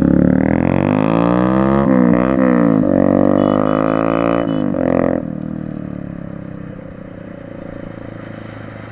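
Bajaj Pulsar 150's single-cylinder engine revved through an aftermarket SC Project exhaust: its pitch climbs and falls in several quick blips for about five seconds, then drops back to a steady idle.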